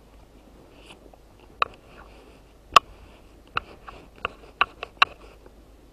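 Sharp crackles and snaps as gloved hands flex and handle a thin, corroded metal plate, about seven in all, the loudest near the middle, with soft rustling between them.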